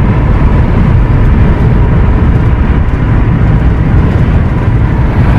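Steady road and engine rumble inside a moving van's cabin while it is driven at road speed.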